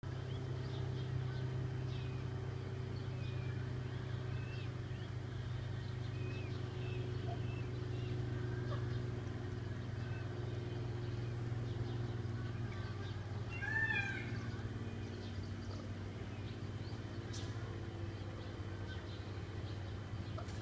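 Peafowl chicks peeping softly now and then over a steady low mechanical hum, with one louder call about fourteen seconds in.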